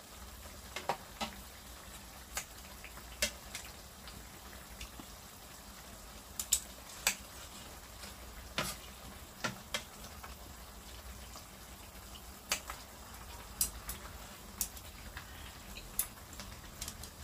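Pork ribs simmering in broth in a pan on a portable gas stove, with irregular sharp clicks of metal tongs, kitchen scissors and chopsticks against the pan.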